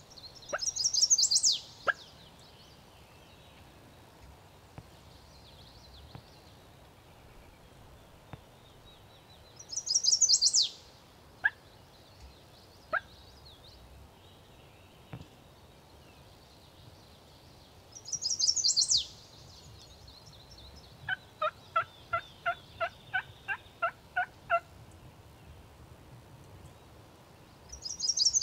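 Wild turkey gobbler gobbling four times, roughly every nine seconds. Between the third and fourth gobble comes a run of about a dozen short, evenly spaced calls lasting some three seconds.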